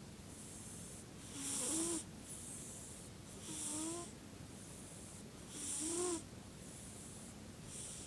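Snoring in a slow, even rhythm: a loud hissing breath with a short whistling squeak roughly every two seconds, with fainter breaths in between.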